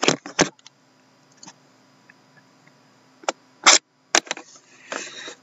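A few sharp clicks and knocks of objects handled on a desk, the loudest a little before four seconds in, followed by a brief scuffling rustle near the end.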